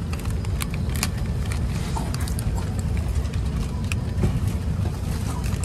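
Steady low rumble of an airliner cabin, jet engine and airflow noise, with scattered small clicks and rattles throughout.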